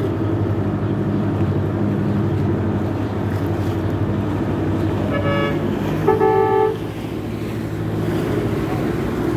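A boat's engine running steadily, with two short horn toots about five and six seconds in, the second louder and lower in pitch.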